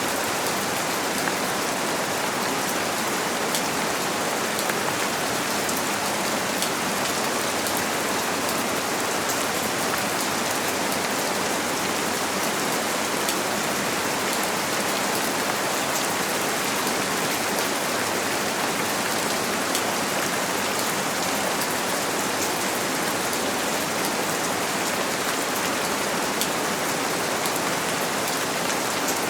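Steady rain falling on a window: an even hiss dotted with many small drop taps.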